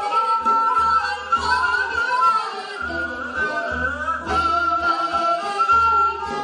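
Women singing a Korean folk song (minyo), the melody held in long wavering notes with sliding ornaments, over light instrumental accompaniment.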